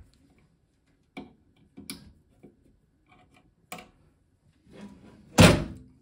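A few light clicks and knocks from handling wiring and panel parts, then one loud knock near the end as a microwave's sheet-metal bottom cover is swung up against its chassis.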